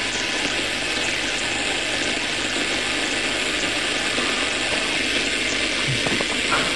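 Steady hiss of electronic static from an instrumental transcommunication setup, the noise over which the session listens for a spirit voice to answer. A few faint short sounds show up in the hiss near the end.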